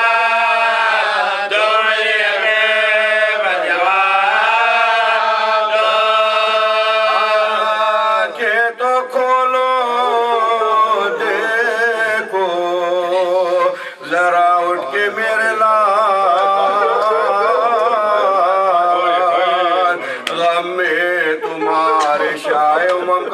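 A man chanting a nauha, an Urdu lament, unaccompanied. He sings a slow melody of long held notes with a wavering pitch, with short breaks between phrases.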